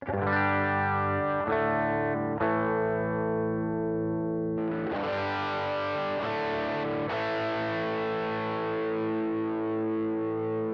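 Electric guitar played through a Boss GT-1 multi-effects processor with a distorted tone, sustained chords struck and left to ring, a new one every one to two and a half seconds. About four and a half seconds in, the tone turns much brighter.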